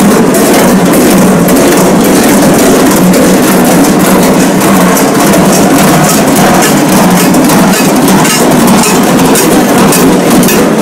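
Many large bells worn on the belts of Glöckler runners, clanging and jangling together in a loud, continuous din.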